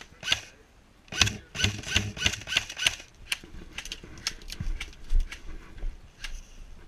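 Airsoft gun firing a rapid string of single shots, about three a second, followed by a few scattered fainter clicks.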